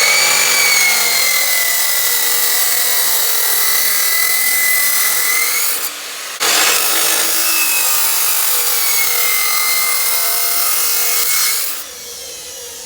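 A power tool cutting into a safety shoe: a loud, harsh cutting noise over a motor whine that wavers in pitch as it bites. It stops briefly about halfway, starts again, and cuts off near the end.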